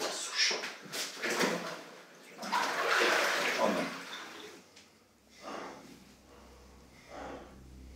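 Bathtub water sloshing and splashing as a limp body is hauled out of the bath, loudest about three seconds in, with scuffling movement around it. A low steady hum starts about five seconds in.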